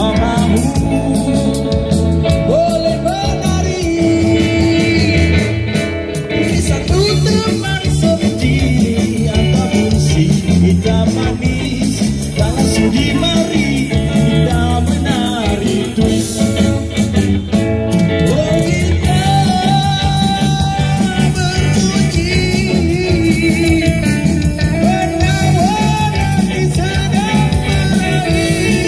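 Live street band playing a song through a PA: a male voice singing the melody over electric bass guitar, keyboard and drums.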